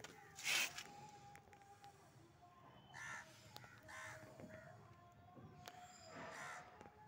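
Crows cawing, four separate caws, the loudest about half a second in.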